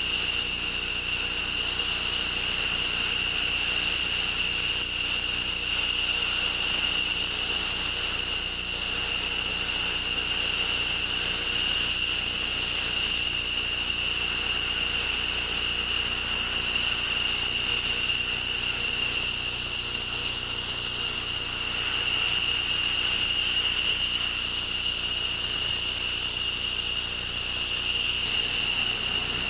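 F-15 fighter's twin turbofan jet engines running at low power as it taxis, a steady high-pitched whine over a rushing noise that holds level throughout.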